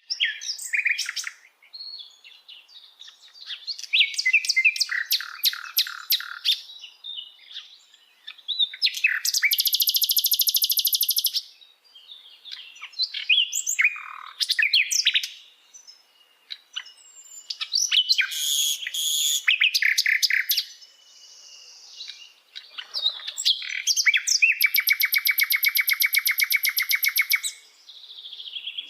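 Sikatan londo (a flycatcher kept as a songbird) singing a varied song of sharp chirps and whistles mixed with fast rattling trills, two of them long, one lasting about two seconds and another about three seconds.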